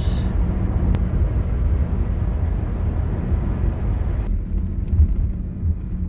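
Car cabin noise while driving: steady engine and tyre rumble with road hiss, the hiss dropping away about four seconds in.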